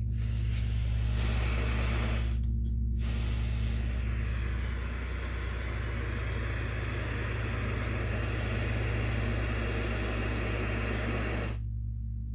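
A 1969 Zenith black-and-white tube television warming up: a steady low mains hum under a loud hiss of static from its speaker, which cuts out briefly about two seconds in and again just before the end.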